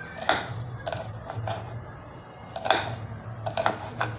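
Kitchen knife slicing green and red chillies on a wooden chopping board: a series of irregular, sharp knife taps against the board, about eight in all.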